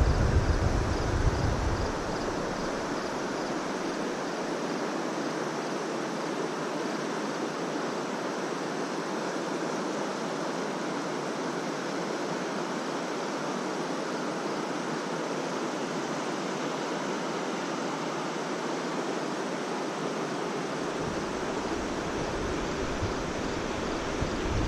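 Steady rush of flowing river water. A low rumble of wind on the microphone covers the first two seconds and returns near the end.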